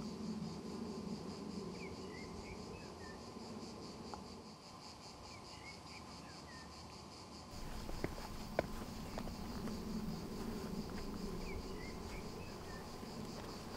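Crickets chirping in a steady, evenly pulsing high trill, with a small bird's short twittering phrase every few seconds. A couple of light clicks about eight seconds in.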